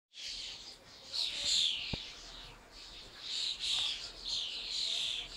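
Small birds chirping and twittering in repeated short high phrases, many sliding down in pitch, with a single brief click about two seconds in.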